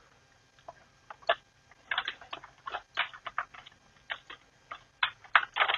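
Computer keyboard being typed on: irregular runs of key clicks, starting about a second in.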